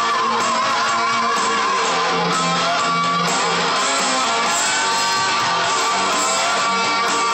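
Electric guitar playing a hard-rock rhythm part along with a full band recording. Near the start, a held melody note with wide vibrato sits above it.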